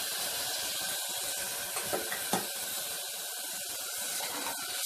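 Water poured onto fried rice and lentils in a hot aluminium pressure cooker, sizzling steadily, while a ladle stirs the pot and knocks against it a couple of times about two seconds in.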